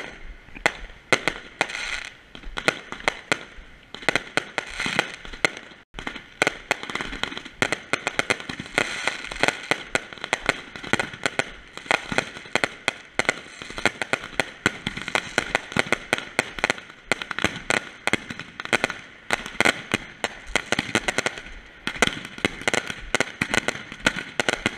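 Consumer firework cakes and a ground fountain going off together: a dense, continuous crackle of rapid pops and bangs over sizzling sparks.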